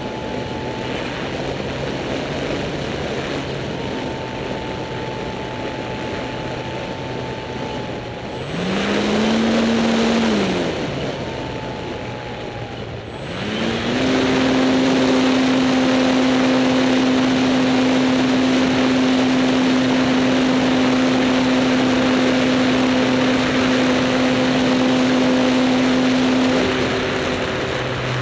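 Electric RC trainer plane's brushless motor and propeller whining in flight, heard from atop the wing over a steady rush of wind. The pitch swells up and falls back about nine to ten seconds in, then the motor runs louder at a higher steady pitch from about fourteen seconds until it eases near the end.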